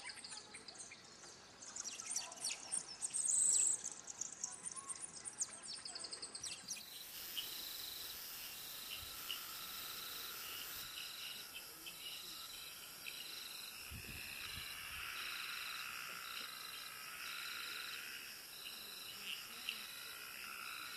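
Rainforest ambience of insects and birds. Quick high chirps and clicks fill the first several seconds. Then the sound changes to a steady insect chorus with a high note pulsing a little faster than once a second, and a brief low rumble about two-thirds of the way through.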